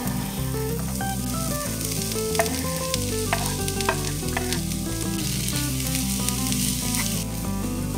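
Chopped onion sizzling in hot olive oil in a nonstick frying pan as it is scraped in from a cutting board and stirred with a spatula, a steady hiss with a few sharp clicks and scrapes about two to four seconds in.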